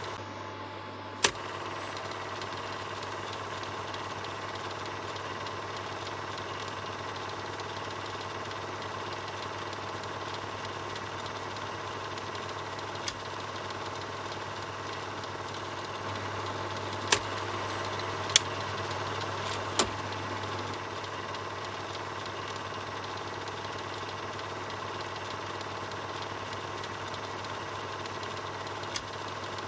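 Film projector running steadily, with a constant motor hum and whirring mechanism. About half a dozen sharp single clicks are scattered through it.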